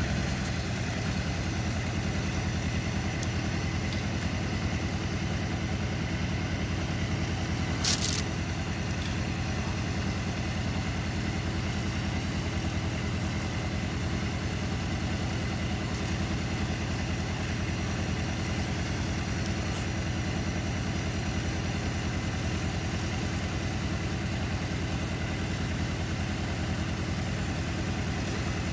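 Tractor engine idling steadily, with one sharp click about eight seconds in.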